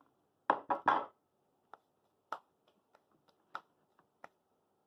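A quick cluster of three loud knocks about half a second in, then scattered light single taps and clicks.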